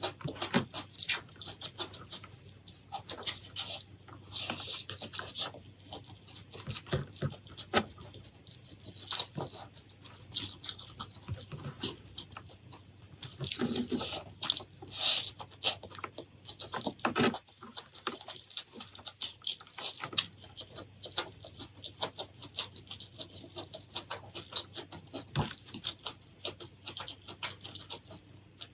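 Close-miked ASMR eating of seafood: wet chewing and lip-smacking, with many quick sticky clicks and crackles and a few louder crunchy bites.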